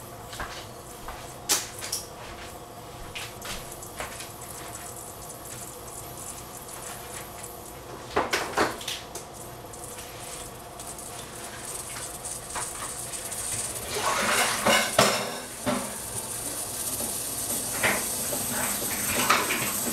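Kitchen crockery and cutlery clinking and knocking, with a louder cluster of knocks about eight seconds in and again around fourteen to fifteen seconds. A high hiss builds through the second half.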